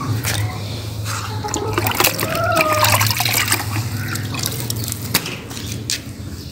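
Plain water scooped from a plastic bucket and splashed onto a solar panel, with irregular splashing and dripping, loudest a couple of seconds in, over a steady low hum.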